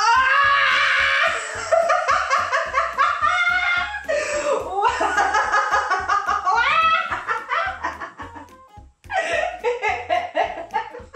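A woman laughing and exclaiming 'wow' in excitement, her voice rising and falling in quick bursts of laughter, over background music with a steady bass beat.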